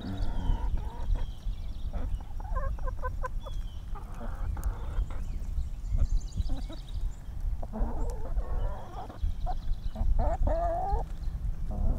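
Several hens clucking and giving short squabbling calls every few seconds as they crowd a feed bowl, with quick beak taps on the metal bowl as they peck the grain.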